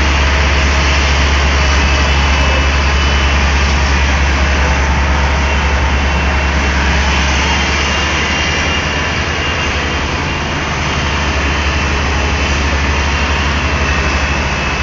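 Daewoo Solar 280 LC III tracked excavator's diesel engine running steadily, a loud low drone with a slight dip in level about ten seconds in.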